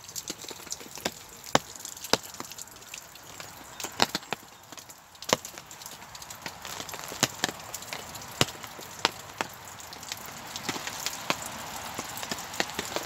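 Irregular sharp taps and cracks, roughly one every half second to second, over a steady hiss that grows a little louder about halfway through.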